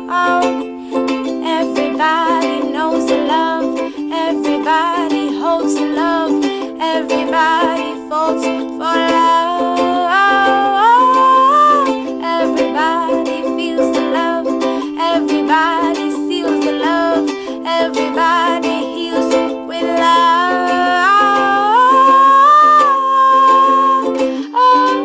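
Background music: a light plucked-string tune with a melody line that steps up and down over a steady accompaniment.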